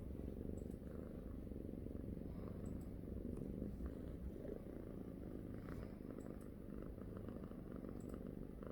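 Domestic cat purring close up: a steady, low, continuous purr.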